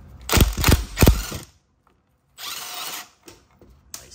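Cordless impact wrench with a 3/4-inch socket hammering an old golf-cart spindle nut loose for about a second. It runs again briefly about two and a half seconds in as the nut spins off.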